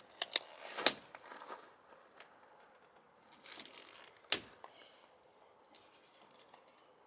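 Duct tape being handled and pressed onto a kayak's bow with gloved hands: a few short sharp snaps and rustles, the loudest a little under a second in and about four seconds in.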